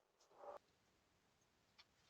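Near silence, with one faint, short sound about half a second in.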